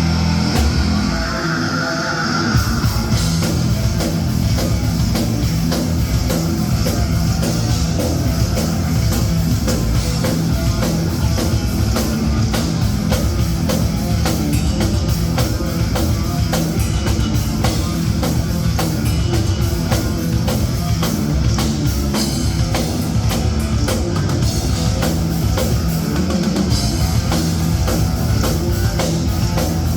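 Rock band playing live, heavy guitar and drum kit: a held guitar chord rings for the first couple of seconds, then the drums come in and the full band plays on at a driving pace.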